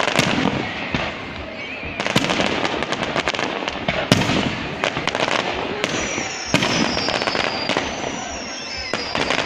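A fireworks display: repeated sharp bangs and dense crackling from exploding shells. In the second half, thin high whistles glide slowly downward over the bangs.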